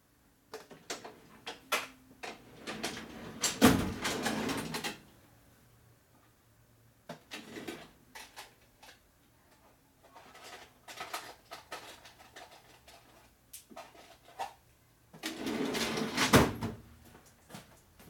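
Someone rummaging through drawers of bolts and hardware: scattered clicks and knocks, with two longer spells of rattling, about three seconds in and again near the end.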